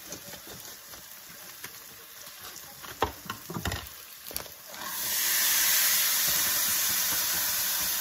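Cauliflower rice poured into a hot pot, starting a loud, steady sizzle and hiss of steam about five seconds in, after a few short knocks.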